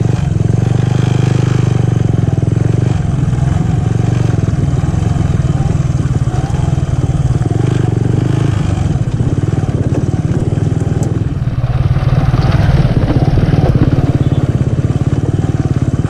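Motorcycle engine running at low speed, heard from the rider's seat, as the bike rolls slowly over a rough dirt and gravel track. It gets a little louder for a couple of seconds past the middle.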